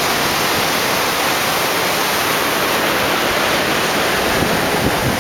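Ocean surf: a steady, even wash of breaking waves.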